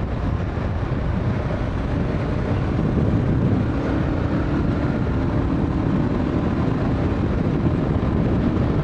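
Motorcycle engine running steadily at road speed.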